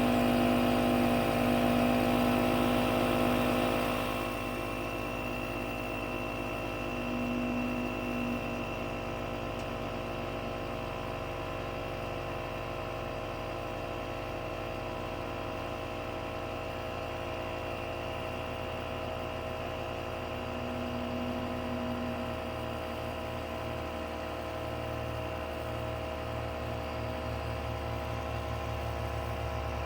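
Jeep engine idling steadily, a little louder for the first four seconds or so.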